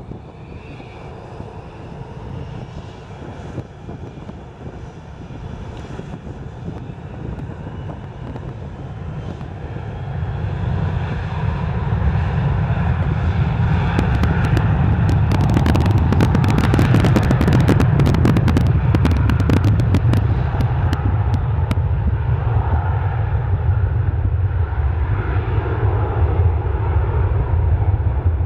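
The twin rear-mounted Pratt & Whitney JT8D turbofans of an American Airlines MD-80 run up to takeoff thrust for the takeoff roll. The engine noise builds about ten seconds in and stays loud, with a spell of crackling in the middle.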